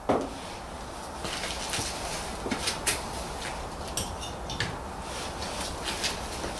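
Scattered clicks and light knocks of hand tools and car parts being handled, opening with one sharper knock.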